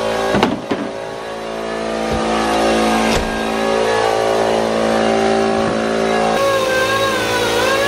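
Shop air compressor running loud and steady. A few knocks come from the car bumper being handled, about half a second in and again around two and three seconds in.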